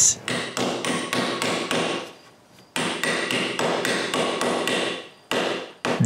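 Hammer tapping a steel Festool Domino knock-down fitting down into a mortise in hardwood, a steady run of blows about three a second, pausing briefly about two seconds in, until the plate sits flush.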